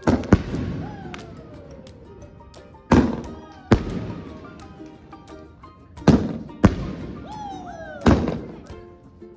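Elephant brand 'Art in the Sky' 25-shot aerial fireworks cake firing. Its shells burst in about seven sharp bangs, mostly in close pairs, roughly every three seconds, and each bang dies away in a short rumbling tail.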